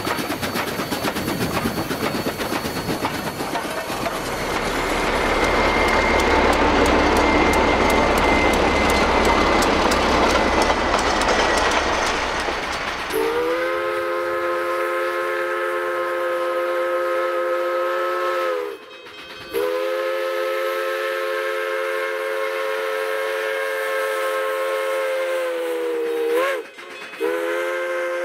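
K-28 steam locomotive No. 476 running with a fast, even exhaust beat, growing louder about four seconds in. About halfway through its chime steam whistle sounds two long blasts, a quick short one and a fourth that begins at the end: the long-long-short-long grade-crossing signal.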